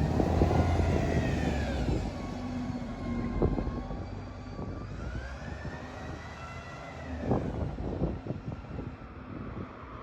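Wrightbus Volvo Gemini 2 double-decker bus heard from on board while under way. Its engine drones low under frequent interior rattles and knocks, and a whine rises and falls twice.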